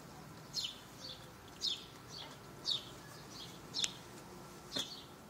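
A small bird chirping over and over: short, high, falling chirps about once a second. A single sharp click comes about four seconds in.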